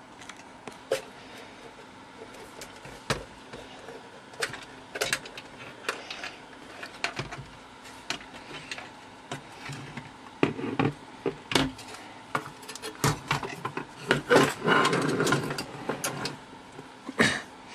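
Handling noise from the thick sheet-metal chassis and cover of a function generator being taken apart: scattered clicks and metal knocks, with busier bouts of knocking and scraping about ten seconds in and again around fourteen to sixteen seconds.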